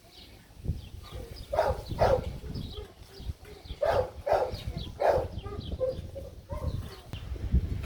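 Short, loud animal calls, about five of them, mostly in pairs, over a low rumble, with faint high bird chirps.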